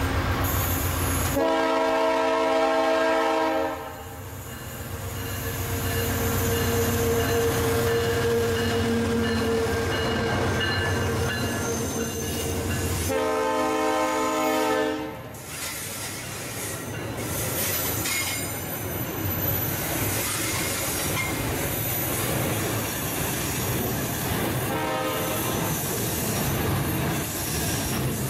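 Diesel freight locomotive's air horn sounding two long chords about ten seconds apart, with a shorter, fainter one near the end, over the steady running noise of the locomotive and the passing train.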